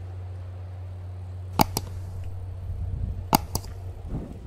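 A steady low mechanical hum, broken twice by a pair of sharp cracks in quick succession: once about a second and a half in, and again about three and a half seconds in.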